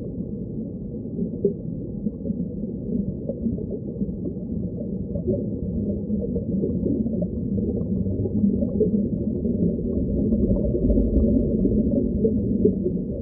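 Muffled underwater ambience: a steady low rush of water with scattered small pops, growing a little louder toward the end.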